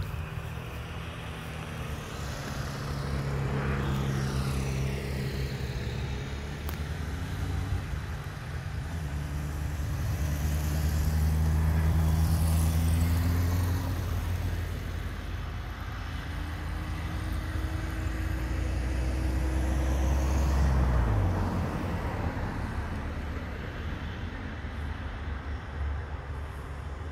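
Alenia C-27J Spartan's twin Rolls-Royce AE 2100 turboprops running as the aircraft rolls along the runway: a steady low propeller drone with a high turbine whine that slides up and down in pitch. It swells twice, and about three-quarters of the way through the low drone drops sharply in pitch.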